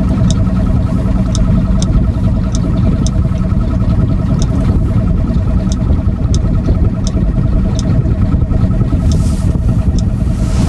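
Boat motor running steadily as the boat cruises slowly, a constant low rumble with a steady hum over it. Faint sharp ticks come at uneven intervals, and a brief rustle sounds near the end.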